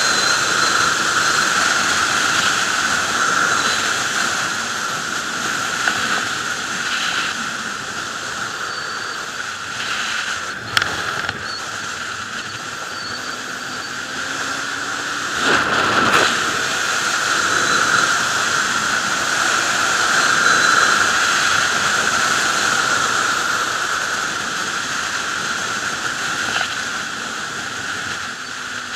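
Steady rush of wind over the microphone of a sportbike ridden at speed, with the engine buried beneath it. There is a brief knock about 11 seconds in and a short louder gust around 16 seconds.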